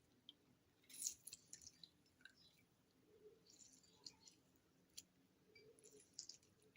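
Faint, scattered wet squishing and small clicks of a lemon half being squeezed by hand.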